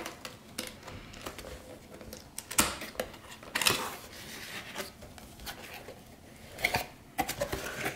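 A cardboard CPU-cooler retail box being opened by hand. The lid tab is pulled and the printed outer sleeve is slid off the inner box, giving irregular scrapes, rustles and taps of cardboard. The loudest come about a third of the way in and again near the end.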